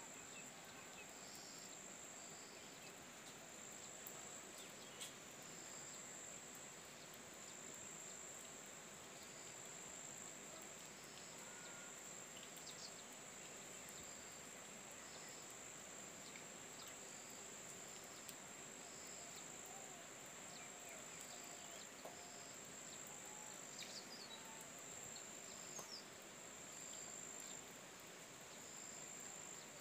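Faint rural ambience: a steady, high-pitched insect drone with a short chirp repeating about every second and a quarter.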